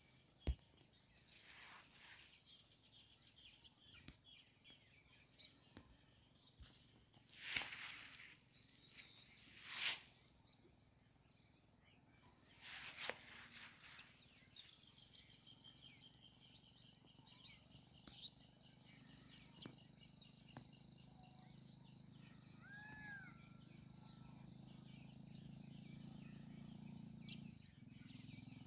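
Faint outdoor dawn ambience: insects keep up a steady high-pitched chirring throughout. A few brief rushes of noise come and go in the first half, a single bird call sounds a little after the middle, and a low hum builds in the last few seconds.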